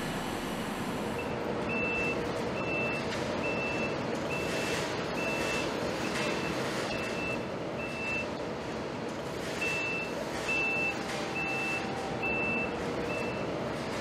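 Heavy-equipment warning beeper sounding a single high beep a little more than once a second, with a break of about a second partway through, over a steady industrial background noise.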